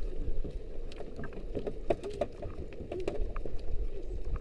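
Steady low rumble of a small fishing boat at sea, with faint wavering voices and a few light clicks over it.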